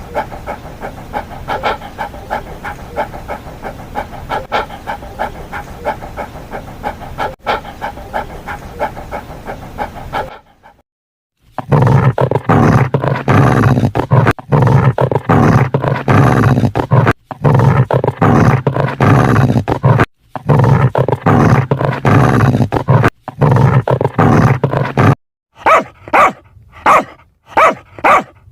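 Dog sound effects played one after another: a run of fast, evenly repeated calls, a short pause, then a long, loud stretch of deep, rough vocalising broken by brief gaps, and near the end short barks about two a second.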